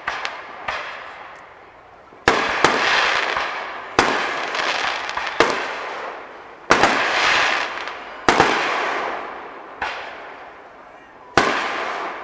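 Aerial fireworks going off overhead: a string of sharp bangs about a second or two apart, each followed by a crackling hiss that fades away.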